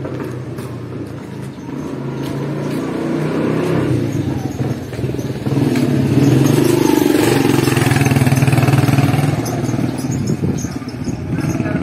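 Motorcycle engine running in a narrow street, a steady hum that grows louder about halfway through and eases off again near the end.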